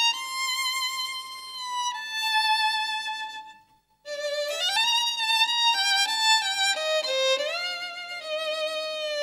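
Background music: a violin melody of held, wavering notes joined by slides. It fades out about three and a half seconds in, goes briefly quiet, then comes back in with a sliding rise.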